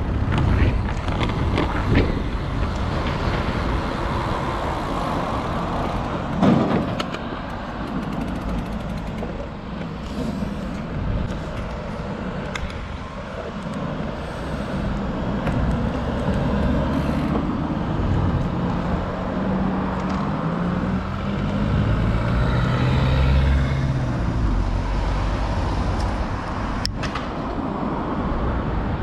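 City street traffic heard from a moving bicycle: a steady wash of passing cars. Past the middle, a heavy vehicle's engine comes through clearly with a pitch that rises and falls, then fades.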